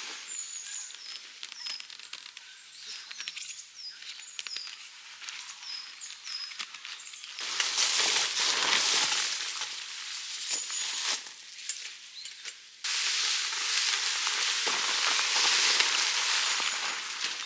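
Nylon fabric of a Pomoly Circle6 tent rustling and crinkling as the tent is handled and raised on its centre pole, loud in two long stretches from about halfway, the second starting abruptly. Before that, lighter rustles and clicks with small birds chirping.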